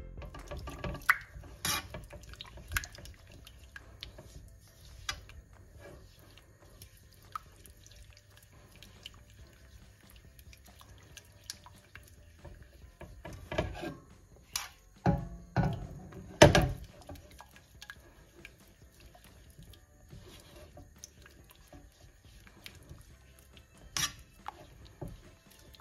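A silicone spatula stirring and scraping thickening coconut cream in a nonstick pan, with wet slopping and occasional sharp knocks of the spatula against the pan, loudest in a cluster a little past the middle.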